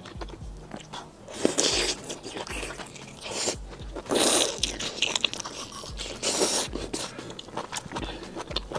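Close-miked biting and chewing of shelled lobster tail meat coated in chili broth: wet mouth clicks and smacks, with three louder bites about a second and a half, four and six and a half seconds in.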